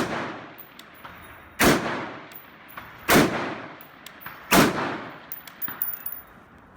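Semi-automatic M16A1-style rifle fired four times at a steady pace, about a second and a half apart, each shot followed by a short echoing tail. A few faint ticks come about a second after the last shot.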